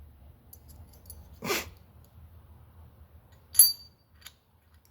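A short breath about a second and a half in, then one sharp metallic clink with a brief high ring about three and a half seconds in, as the metal lifter retainers of a small block Chevy roller engine are handled.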